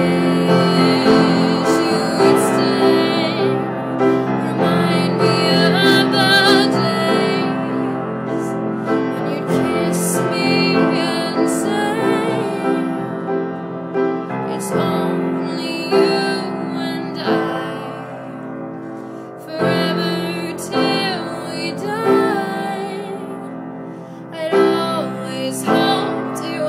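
Music: a song with piano accompaniment and a wavering high melody line over it, without sung words, recorded through a phone's microphone.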